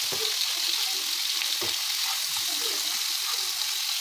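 Marinated chicken pieces sizzling in hot oil in a frying pan, a steady hiss, with a couple of light knocks.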